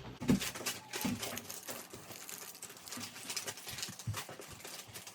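Wrapping paper crinkling and rustling as it is folded around a plaque, with a few soft thumps of handling.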